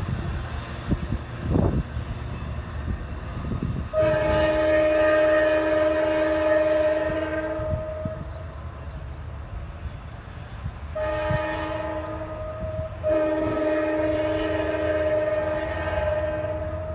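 Amtrak F59PHI locomotive's Nathan K5LA five-chime air horn sounding three blasts, a long one about four seconds in, a short one about eleven seconds in and another long one right after, over the low rumble of the departing train.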